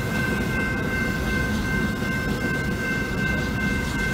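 Container freight train's wagons rolling steadily past close by: a continuous low rumble of wheels on the rails, with a thin steady high-pitched whine over it.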